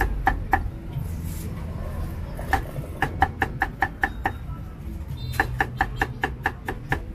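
Cleaver chopping a cucumber on a round wooden chopping block: sharp knocks, each with a brief ring, two at first, then two quick runs of about six chops a second.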